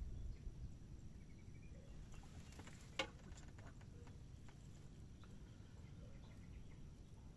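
Faint outdoor ambience with a low wind rumble. About three seconds in comes one sharp click among a few smaller ticks, as a fishing rod is handled and lifted from its holder to strike at a bite.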